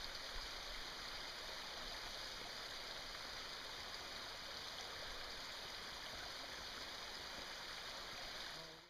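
A small woodland creek running, a steady rushing sound with no distinct events in it, fading in at the start and out at the end.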